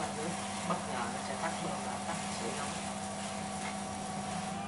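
Water spraying from the handheld shower head of an instant electric shower heater, a steady hiss, over a steady motor hum. Both cut off near the end.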